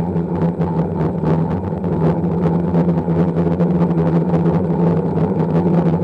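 Octocopter's electric motors and propellers droning steadily, heard through the onboard camera's microphone, with wind buffeting the microphone in uneven gusts.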